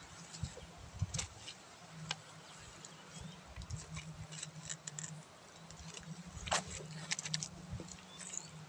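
Footsteps of rubber boots on wet grass and mud, with irregular soft crunches and rustles of plants underfoot, over a low steady hum and a few faint short rising chirps.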